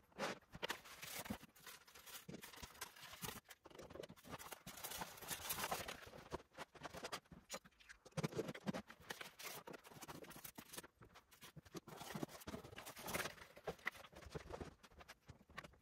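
Faint, irregular rustling, tapping and clicking of cardboard boxes and plastic packaging being handled as model locomotives are unpacked.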